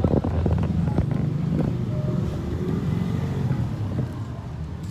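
Street traffic, with a motor vehicle engine running steadily close by and a few short clicks in the first second or so.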